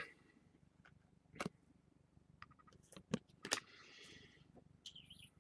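Faint handling of trading cards: a few soft clicks and ticks and a brief rustle as cards are slid and flipped through a freshly opened pack.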